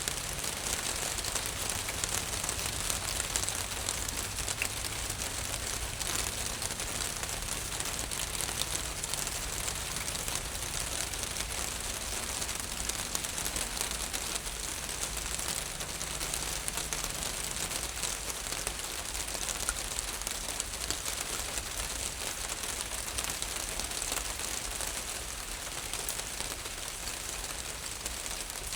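Steady rain falling on a roof, a dense even patter of many small drops.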